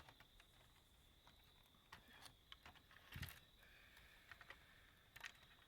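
Near silence with faint scattered clicks and taps from small electronic parts being handled during disassembly, and one slightly louder clack about three seconds in.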